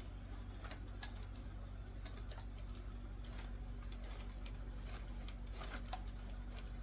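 Scattered light clicks and taps of plastic stick-vacuum parts being handled and fitted together, over a steady low hum.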